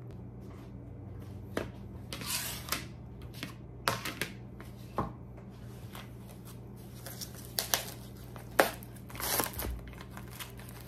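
Kitchen handling sounds: a plastic bag crinkling and rustling in a few short spells, with several light knocks and clicks of things set down on the counter, over a steady low hum.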